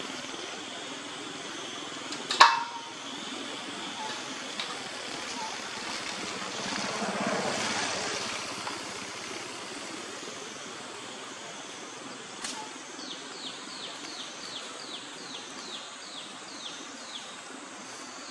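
Outdoor ambience with a steady hiss. A sharp snap about two seconds in is the loudest sound, a rushing noise swells and fades around the middle, and near the end a bird calls a quick run of about a dozen short, falling high notes.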